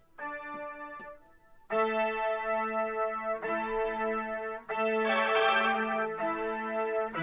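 Electric guitar chords played through a Boss SY-200 synthesizer pedal on lead variation 17, giving a keyboard-like synth tone. A few quiet notes first, then loud held chords struck about every second and a half from about two seconds in.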